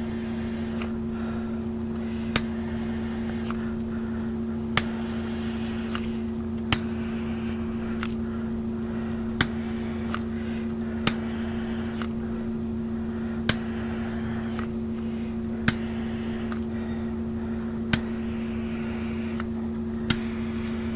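Handheld butane torch hissing in passes over wet epoxy resin, over a steady background hum. A sharp click comes about every two seconds.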